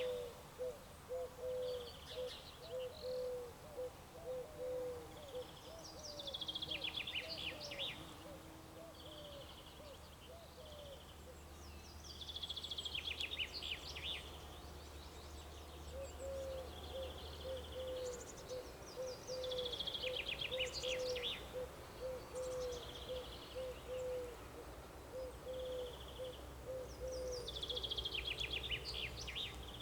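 Birdsong: a songbird repeats a short song phrase, a clear note dropping into a fast descending trill, about every seven seconds. Under it a low hooting call repeats quickly, a couple of notes a second, for long stretches.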